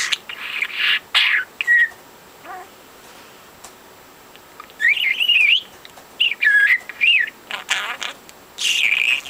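Pet budgerigar chattering, quick warbling chirps and twittering glides in bursts, with a pause of about three seconds in the middle.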